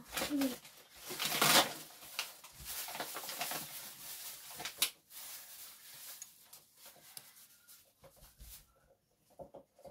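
Plastic bag of flour rustling and crinkling as it is handled over a measuring jug, loudest about a second and a half in, then fainter crackles that thin out after about five seconds.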